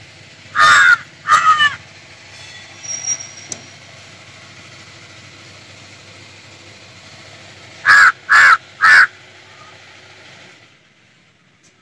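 A bird calling loudly outdoors: two short calls about a second in, then three more in quick succession near the end, over a faint steady background hum.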